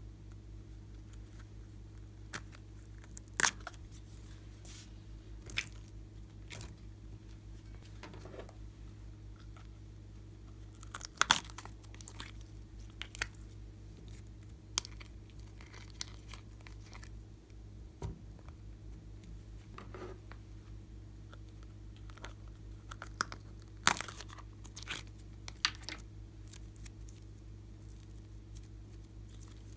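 Hands stretching, folding and squeezing glossy slime, giving scattered sticky clicks, pops and snaps at irregular intervals, the sharpest about a third of the way in and again about two-thirds through, over a faint steady low hum.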